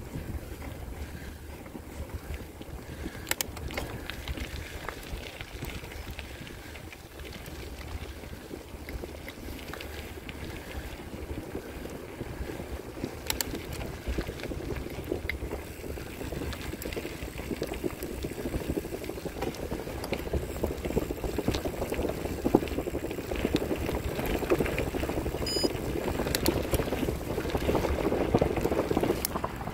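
Riding noise from a bicycle: wind buffeting the handlebar-mounted microphone over the hiss of tyres rolling on a wet forest road, getting louder in the second half, with a few scattered clicks.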